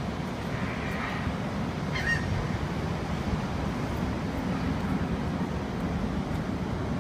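Steady low rumble in the background, with a faint short seagull call about two seconds in.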